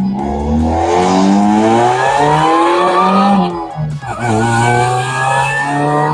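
Supercharged Saturn Ion Redline's 2.0-litre four-cylinder accelerating hard, its engine note and supercharger whine climbing in pitch. The revs drop briefly at an upshift about four seconds in, then climb again.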